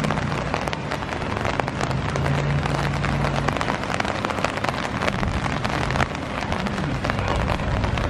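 Rain falling on an open umbrella overhead: a dense, steady patter of drops striking the fabric, with many sharp individual ticks.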